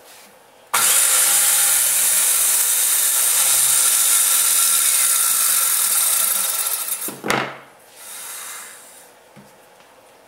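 Makita circular saw starting abruptly about a second in and cutting straight through a board along an aluminium track rail, a loud steady whine with cutting noise for about six seconds. Then it stops, followed by a sharp knock and a shorter, softer rushing sound.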